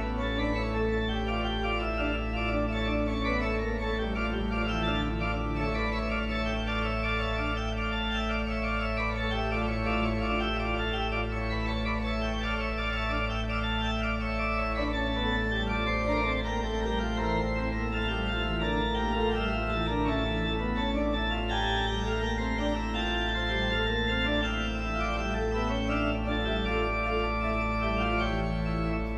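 Organ music: low bass notes held steady under lines of moving notes in the middle range.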